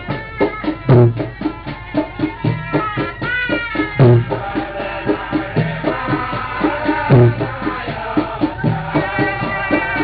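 Background music: fast, steady percussion with a deep drum hit about every second and a half, under a wavering melody line.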